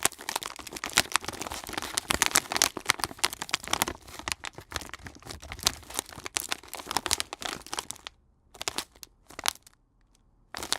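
Plastic package being handled by hand, crinkling and crackling in rapid irregular snaps. The rustling stops about 8 s in, comes back as two brief rustles, then starts again near the end.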